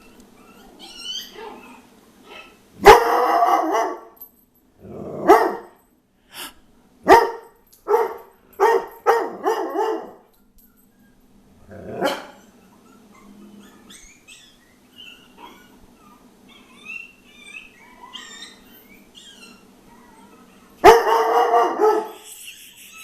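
A dog barking in loud single barks: one about three seconds in, another near five, a quick run of barks from about seven to ten seconds, one more near twelve and a longer burst near the end. Between them come faint high-pitched puppy yips and whimpers from a puppy video playing on a device, which the dog is barking at.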